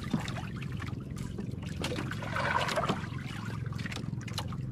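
Water trickling and lapping against the hull of a small outrigger boat, over a steady low hum, with a few light clicks.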